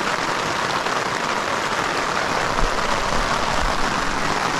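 Steady rain pattering on a fabric canopy overhead, an even hiss of drops.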